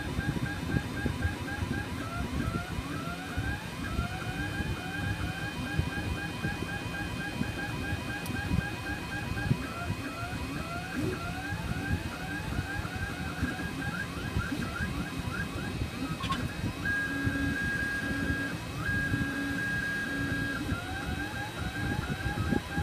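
da Vinci 1.0 3D printer's stepper motors moving the print head in quick short runs, each a brief rising or falling whine, many a second, over a faint steady high whine. About three quarters of the way through, two held whines of about a second and a half each, as the head makes longer moves at a steady speed.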